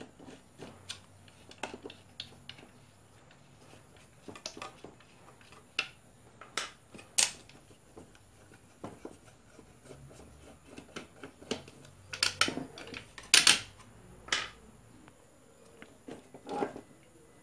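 Hand screwdriver working screws out of a red plastic electric blower housing, with irregular clicks and knocks of the screwdriver, loose screws and plastic parts handled on a wooden workbench. The loudest knocks come about seven seconds in and again around thirteen seconds.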